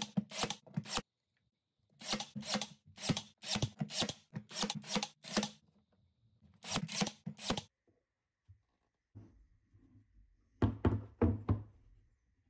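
Cordless brad nailer driving brad nails into pine pallet-wood frame boards: sharp shots in quick runs of about two a second with pauses between. A short cluster of similar sharp knocks comes near the end.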